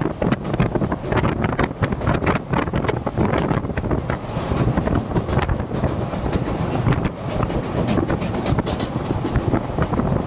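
Train running on the rails: a continuous rumble with irregular wheel-and-track clatter.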